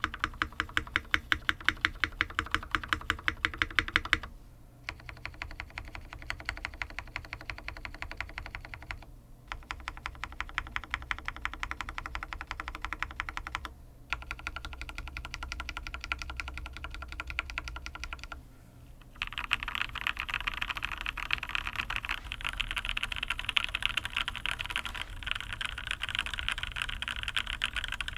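Typing on a UTD 360c top-mount mechanical keyboard with Krytox-lubed full-nylon switches: runs of rapid keystrokes separated by brief pauses every four to five seconds. The last run, from about two-thirds in, is denser and brighter.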